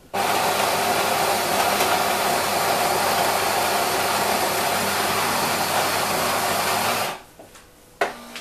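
The Melitta CI Touch bean-to-cup machine's built-in grinder grinding coffee beans at the start of a drink: a steady motor whir that cuts off suddenly about seven seconds in. A short click follows near the end.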